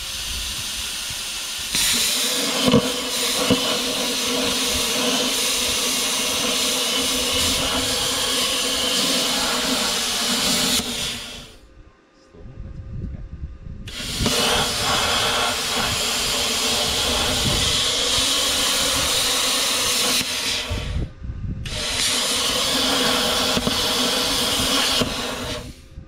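Handheld plasma cutter cutting a hole through square steel tubing: a loud, steady hiss of the arc and air. It runs in three stretches, cutting off about eleven seconds in, starting again two to three seconds later, and stopping briefly once more near the end.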